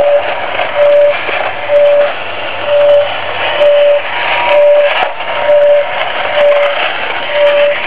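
Battery-operated 1950s Japanese tin bump-and-go police car running, its motor and gears whirring with a rattle, over a steady-pitched siren beep that repeats about once a second. A few sharp clicks come through as it is handled.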